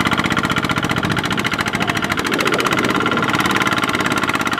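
Kubota single-cylinder diesel engine of a two-wheel walking tractor chugging steadily with a fast, even beat, working under load as it hauls a trailer of rice sacks through deep mud.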